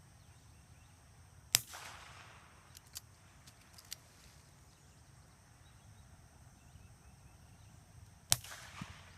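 Two gunshots about seven seconds apart, each with a short echo trailing off. These are the shots fired for the two throws of a double mark in retriever training.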